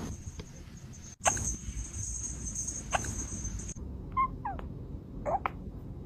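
Kitten hiccupping: a few short, squeaky hics that drop in pitch, in the second half.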